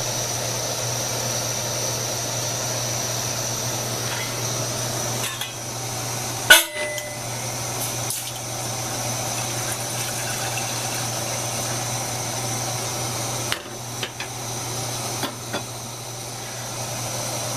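MSR Whisperlite International white-gas stove burning at medium heat, a steady rushing hiss from the burner. A sharp knock comes about six and a half seconds in, with a few fainter clicks later.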